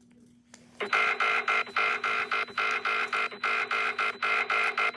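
Grenada's emergency alert alarm: a loud electronic beeping at one steady pitch, pulsing about three times a second, starting about a second in.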